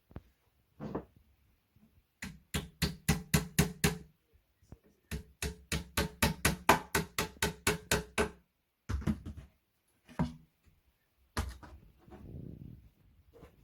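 A hammer tapping on the flat-pack bedside table in two quick runs of strikes, about five a second, then a few single knocks near the end.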